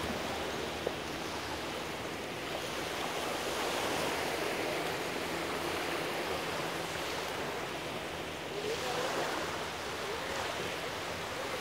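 Small waves breaking and washing up on a sandy beach: a steady rushing wash that swells a little and eases.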